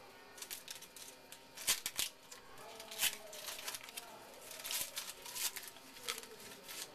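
Trading cards being handled and flipped through one by one: a run of short rustles and snaps of card stock, loudest at about two and three seconds in.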